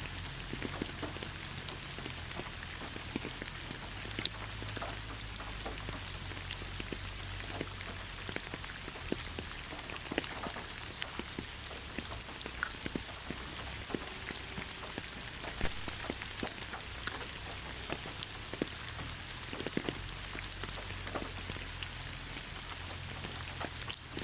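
Steady rainfall: an even hiss with many separate drops striking close by as irregular sharp ticks.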